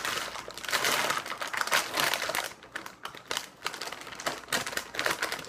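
Plastic snack bag crinkling and crackling as it is handled: dense crinkling for the first couple of seconds, then scattered crackles and clicks.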